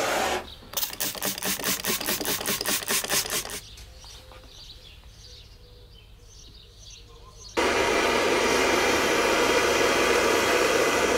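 A handheld butane blowtorch comes on about two-thirds of the way in and runs with a steady hiss, scorching a pine board for a shou sugi ban charred finish. Before it, a rapid run of short strokes about seven a second lasts about three seconds, followed by a few quieter seconds.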